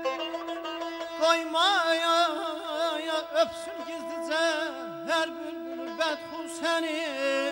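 Azerbaijani mugham singing: a male voice in phrases with quick warbling ornaments, over a steady held note from the accompaniment.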